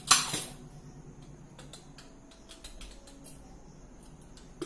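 A metal ladle clanks once against a pressure cooker just after the start, then faint scattered clicks and light knocks follow, with a sharper knock near the end.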